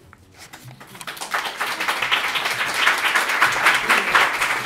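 Audience applauding at the end of a poem reading: a few claps begin and quickly swell within about a second into steady, dense clapping.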